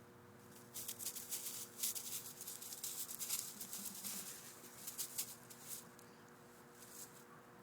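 Jack Russell puppy scuffling with a mouse: a dense run of quick, sharp scratching and scrabbling sounds that starts about a second in and dies away around six seconds. A faint steady hum lies underneath.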